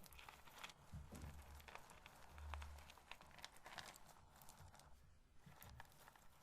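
Roasted corn kernels being handled close up: a quiet run of small, irregular clicks and rustles as the kernels are touched and rubbed together, with a couple of soft low thuds.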